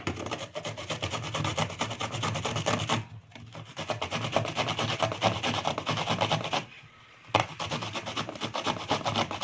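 Half a cucumber, skin on, grated by hand on a fine stainless-steel grater: a rapid rasping scrape of quick back-and-forth strokes. It breaks off twice briefly.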